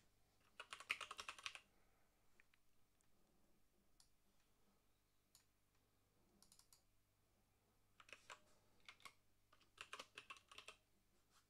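Computer keyboard being typed on in quick runs of keystrokes, one about a second in and another near the end, with a few single clicks in between. Otherwise near silence.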